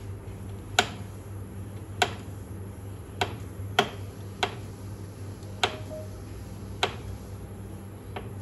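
Druck DPI 612 calibrator's built-in pump raising pressure: sharp clicks about once a second, unevenly spaced, over a steady low hum.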